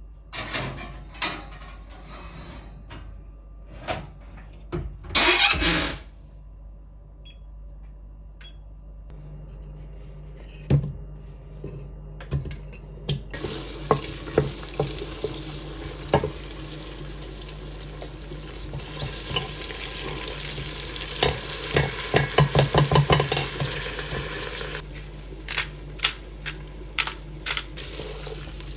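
Kitchen cooking sounds. Utensils and dishes clink, with a short rush of noise about five seconds in. From about halfway, food sizzles steadily in a frying pan while a utensil stirs and taps against it, with rapid clinks a few seconds before the end.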